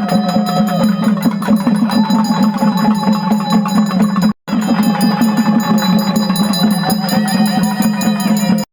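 Traditional music with fast, even drumming over a steady low drone and a wavering melody line. The sound drops out completely for a moment about four and a half seconds in, then the same music resumes.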